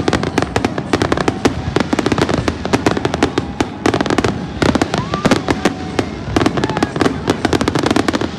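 Aerial fireworks display: a dense, unbroken barrage of bangs and crackling bursts, many per second.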